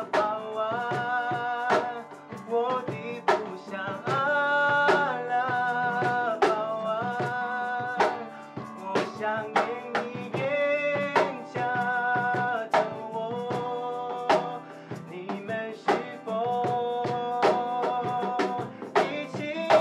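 End-credits music: a song with a drum-kit beat under a melody of long held, gliding notes.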